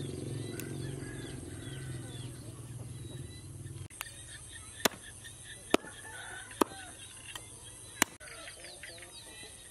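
Meat cleaver chopping through raw pork bones on a wooden chopping block: five sharp chops in the second half, roughly a second apart. Before them a low steady hum stops abruptly about four seconds in, and chickens cluck faintly throughout.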